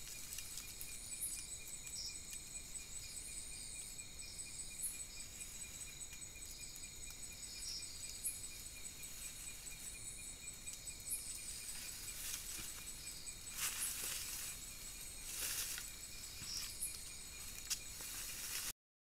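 Night-time forest insects trilling steadily at several high pitches, a rapid pulsing chorus. A few brief rustles stand out in the second half.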